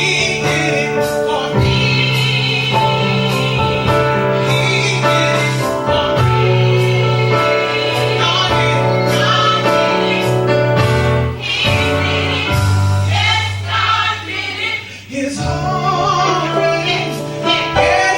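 Gospel choir singing with a band: a held bass line and a steady drum beat under the voices.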